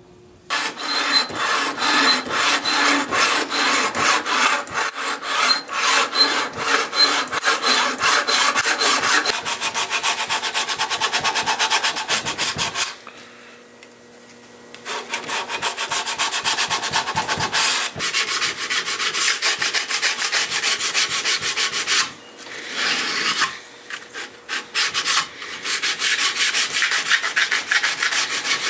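Hand-sanding a homemade steel knife blade with medium-grit sandpaper: rapid back-and-forth rubbing strokes. They stop for about two seconds midway and briefly twice more later.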